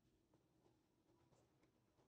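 Near silence, with a few faint, soft ticks.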